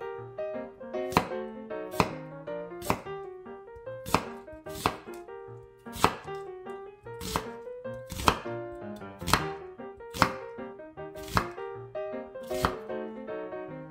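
Chef's knife slicing an onion on a wooden cutting board, each cut ending in a sharp knock of the blade on the board, about one a second. Background jazz music plays underneath.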